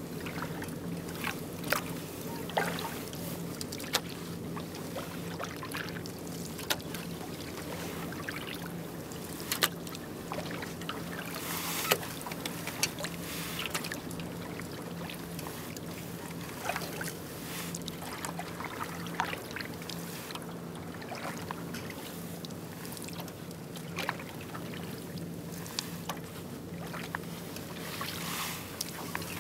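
Kayak paddling on calm water: a double-bladed paddle dipping in and pulling through in an easy rhythm, with water splashing and dripping off the blades and scattered sharp clicks, over a steady low hum.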